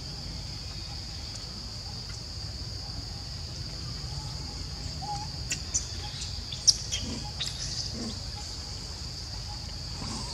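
Steady high-pitched drone of insects over a low rumble. Between about five and eight seconds in, a few short sharp chirps or clicks break in, the loudest near seven seconds.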